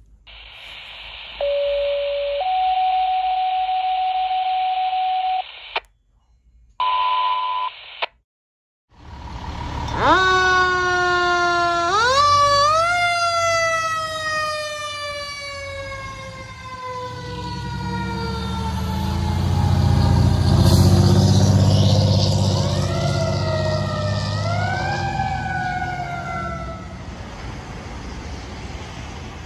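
Fire dispatch alert tones: a lower steady tone, then a higher one held for about three seconds, followed by a brief buzz. A fire apparatus siren then winds up twice and falls slowly in pitch for about fifteen seconds over a deep rumble, and a second siren rises twice near the end.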